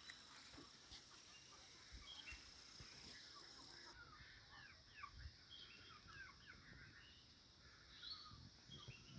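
Faint bird chirping: many short, quick calls from small birds, thickest from about two to seven seconds in.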